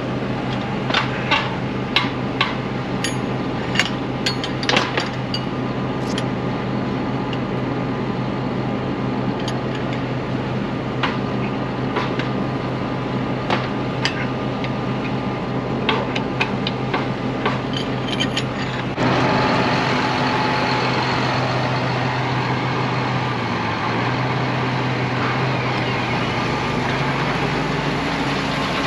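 Tractor engine running at a steady pitch, with scattered metal clinks and taps over the first two-thirds. About two-thirds through, the sound jumps louder and turns to a noisier, rattling run.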